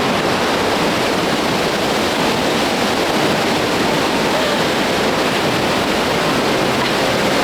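Tännforsen waterfall: a loud, steady rush of falling water.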